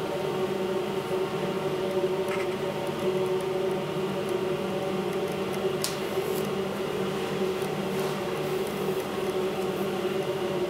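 A steady machine hum with several fixed tones, from a fan or electrical appliance running; a faint click about six seconds in.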